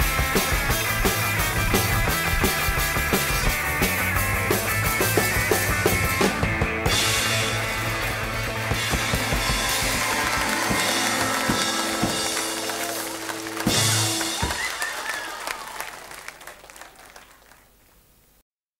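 Rock band with drums and electric guitar playing a song's instrumental ending. A held chord closes on a final crash about fourteen seconds in, which rings out and fades away.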